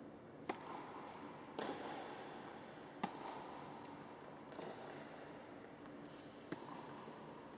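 Tennis ball struck with racquets during a rally on an indoor court: four sharp pops, about half a second in, at one and a half seconds, at three seconds and near the end, each with a short echo off the hall.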